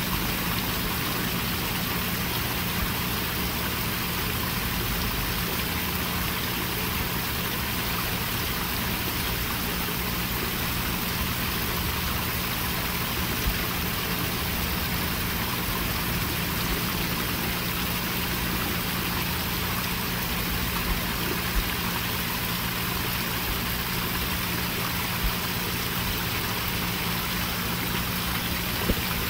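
Small garden-pond waterfall splashing and trickling steadily over rocks, with a steady low hum underneath.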